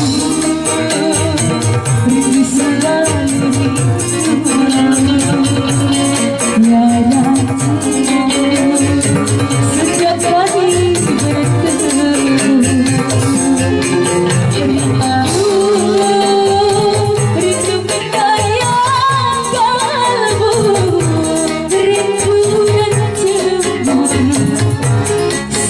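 Female vocalist singing a melodic line into a microphone over a live band. Hand drums play underneath, and a tambourine or shaker keeps a fast, even rhythm.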